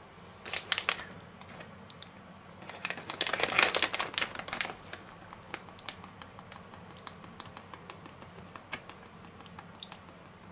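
A plastic bag crinkles as it is handled. Then liquid pours from a bottle through its pour spout into the bag, glugging as a run of quick little clicks, several a second.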